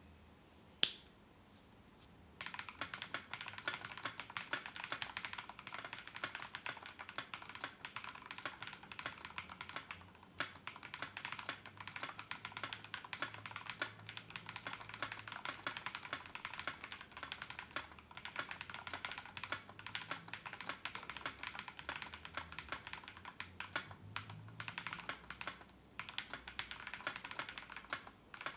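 Typing on a Keychron K12 keyboard with lubed Tecsee Ice Candy linear switches and G.Skill Crystal Crown keycaps: two sharp single clicks at the start, then fast continuous key clatter from about two seconds in, with short lulls about ten seconds in and again near twenty-six seconds.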